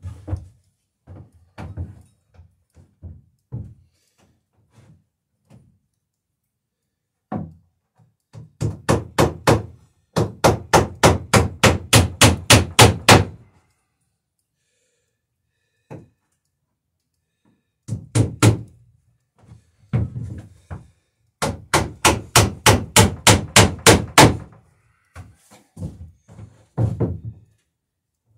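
Hammer driving nails into the wooden rail of a dory hull: two long runs of quick, even blows, about four a second, with scattered single taps before, between and after.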